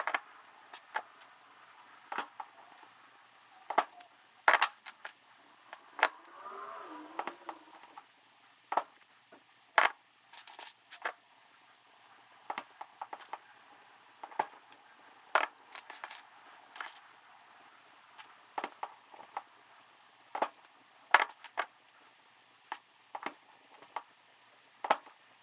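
Irregular sharp metal clicks and snaps of hand tools stripping wire and crimping terminal pins onto short wire pigtails, with small metal parts clinking. A short wavering squeak comes about six seconds in.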